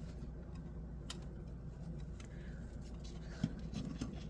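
Faint handling noises while unpacking: a few light clicks, rustles and a small knock over a low steady hum.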